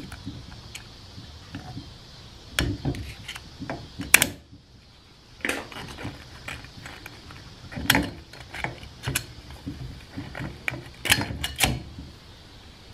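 Wavy snap ring being pried and worked out of a 47RE transmission's steel forward clutch retainer with a pick: irregular small metal clicks and clinks, a few sharper ones among them.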